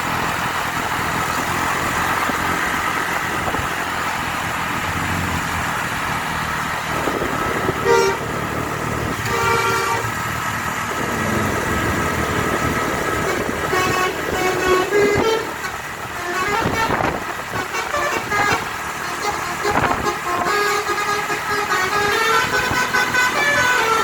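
Bus telolet horn, a V4 module driving DAV air horns, over running engine and road noise. A few seconds in it gives short separate blasts, then plays a string of quick notes that change in pitch, an old-style telolet tune.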